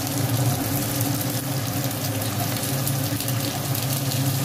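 Oil sizzling and crackling in a non-stick kadai of frying chopped garlic, ginger and green chillies as cubed onion is tipped in, over a steady low hum.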